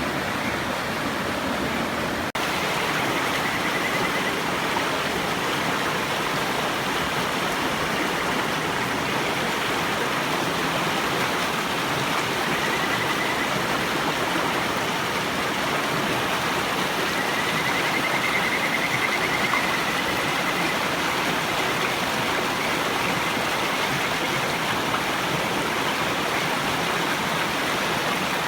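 River water rushing steadily, with Kajika frogs (Buergeria buergeri) giving faint, wavering, whistle-like calls a few times over the top.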